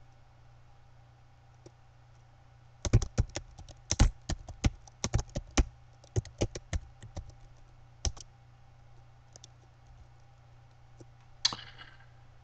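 Computer keyboard typing: a quick run of keystrokes for about five seconds as a file name is typed, then a few single key presses, the last one near the end.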